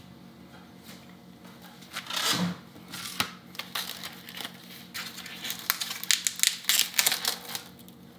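Plastic film on a packaged steak crinkling and tearing as it is peeled off its foam tray: a brief rustle about two seconds in, then a run of sharp crackles and snaps that are loudest near the end.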